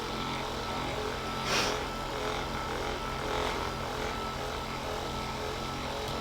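Electric percussion massager (massage gun) running steadily against the lower back: a constant motor hum. A short hiss about a second and a half in.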